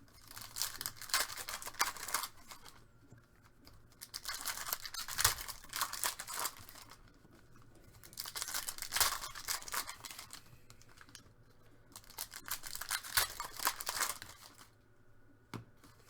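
Trading card pack wrappers being torn open and crinkled by hand, in several bursts of crackling a few seconds apart.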